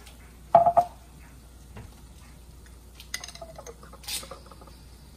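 Glass sauce bottle and small ceramic cup clinking: one loud ringing clink about half a second in, then a cluster of lighter clicks and knocks about three seconds in, with a sharp click near the four-second mark, as the bottle is handled and set down on a stone counter.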